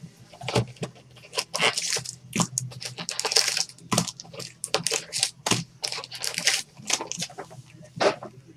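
Cardboard packaging of a Panini Playbook football card box and its foil-wrapped packs being handled: irregular crackling and crinkling as the box is opened and the packs are taken out.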